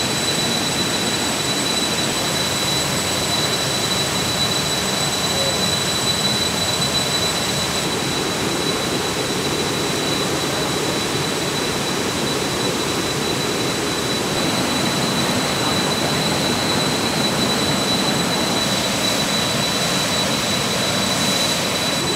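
A steady, even rushing noise with no breaks, with a thin high whine held on top of it.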